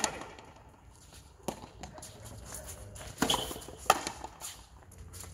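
A few sharp knocks of a frontenis ball striking rackets, the front wall and the concrete floor, three spaced hits, the last the loudest.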